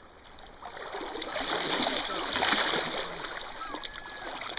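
A hooked silver (coho) salmon splashing at the surface of shallow river water. The splashing builds about a second in, is loudest around the middle, and eases off near the end.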